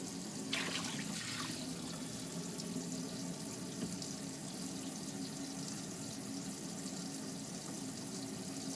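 Camper sink faucet running hot water at full flow, a steady rush of water with a low steady hum beneath it. About half a second in, a brief louder splash rises over the flow.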